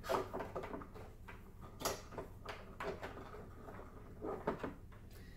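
Handling noise: a few light knocks and clicks at uneven intervals, the sharpest right at the start and another about two seconds in.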